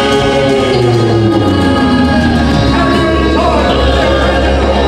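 Southern gospel male quartet singing live into microphones, with music behind them; one voice slides down in pitch over the first two seconds.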